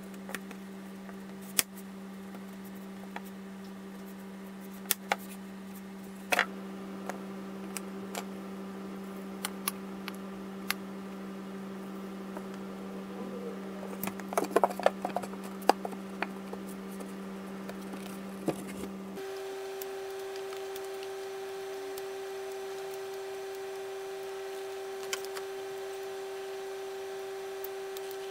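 A steady low hum runs underneath, changing to a different pitch abruptly about two-thirds of the way through. Over it come scattered light clicks and taps of materials being handled on a wooden floor, with a brief flurry of them in the middle.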